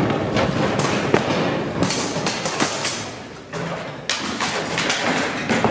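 A string of irregular thuds and knocks over a noisy clatter, with a brief lull about three and a half seconds in.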